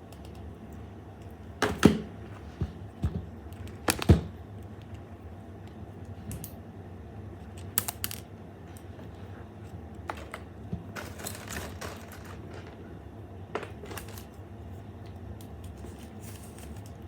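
Irregular clicks, taps and knocks of small hard objects being handled, over a steady low hum. The loudest knocks come about two and four seconds in, with lighter clicking and scraping later.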